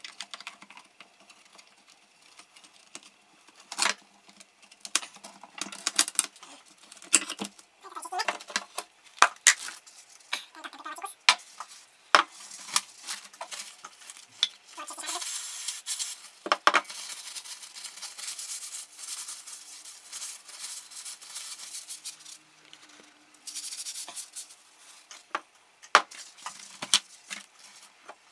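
Hand tools and metal parts clicking, clinking and scraping during hands-on disassembly of a concrete vibrator, with a few short stretches of hissing noise.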